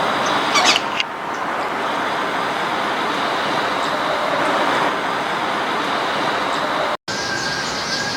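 Steady road traffic noise, with a few short bird chirps in the first second. The sound cuts out for an instant about seven seconds in, then resumes with faint bird calls over the traffic.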